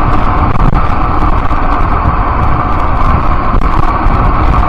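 Loud, steady rush of wind on the microphone mixed with road and traffic noise while riding along a city street.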